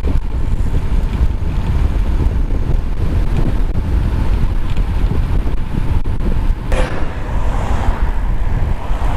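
Wind buffeting a helmet-mounted GoPro's microphone while cycling along a road: a loud, steady low rumble. A brief sharp noise comes about seven seconds in.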